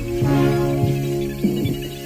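Background music with held low notes and a few plucked notes.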